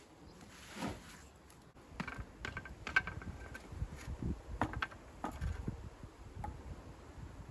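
Scattered light knocks and clinks of hand tools and stone during dry-laying of a stone wall, a few of them with a short metallic ring about three seconds in.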